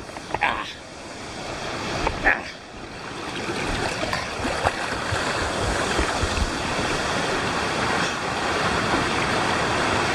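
Rushing water of a mountain stream and waterfall, a steady hiss, with two short sharp splashes or knocks in the first few seconds.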